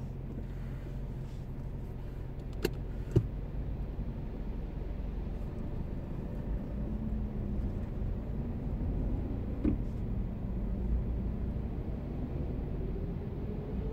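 Low, steady engine and road rumble heard from inside a car crawling forward in slow traffic, with two sharp clicks about three seconds in and a fainter one near ten seconds. The engine note rises a little as the car pulls forward.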